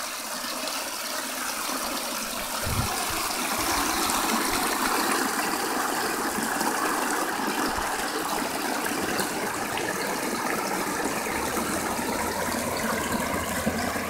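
A small waterfall: water spilling over a low rock ledge into a pond, a steady rushing splash.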